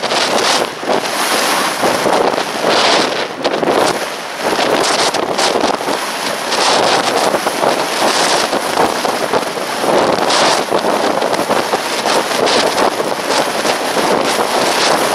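Strong wind buffeting the microphone: a loud, rushing roar that swells and drops in gusts every second or two.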